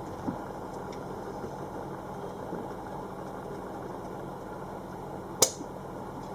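A steady mechanical hum, with one sharp click about five seconds in.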